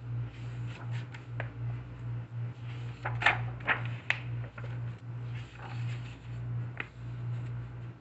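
Pages of a coloring book being turned by hand, with short paper swishes and flaps, the loudest cluster about three to four seconds in, over a steady low hum.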